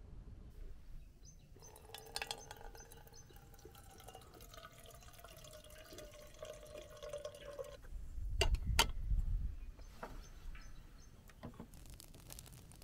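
Water poured from a copper kettle into a small brass teapot of saffron threads: a steady stream lasting about six seconds, its pitch rising slightly as the pot fills. About eight seconds in come two sharp metal clinks with a thump.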